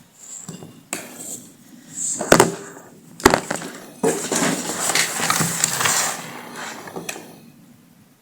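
Hard parts and tools handled on a workbench: several sharp knocks and clicks, with a stretch of scraping and rattling about four to six seconds in.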